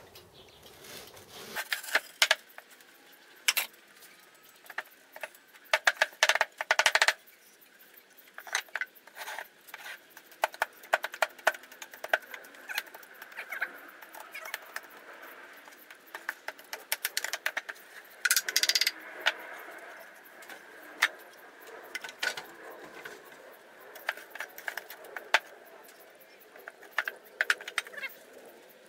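Moulding flask being knocked apart and fresh metal castings broken out of the packed moulding sand: an irregular run of sharp taps, knocks and light metallic clinks with scraping and crumbling of sand between them, coming in dense clusters about six seconds in and again about two-thirds of the way through.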